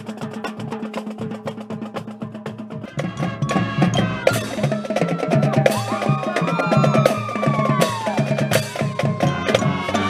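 Marching band playing: drumline percussion with rapid stick hits over a steady low tone, and from about three seconds in the fuller band joins with many pitched instruments over the drums.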